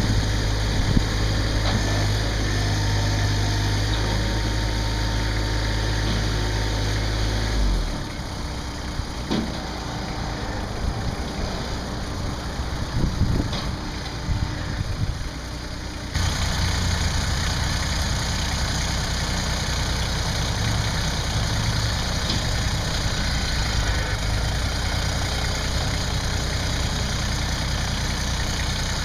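Massey Ferguson GC2610 sub-compact tractor's diesel engine idling steadily. About eight seconds in, the deep low hum drops away and a few knocks are heard; the steady idle returns about sixteen seconds in.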